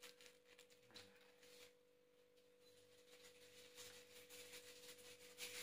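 Near silence: room tone with a faint, steady high hum and a few soft handling clicks and rustles.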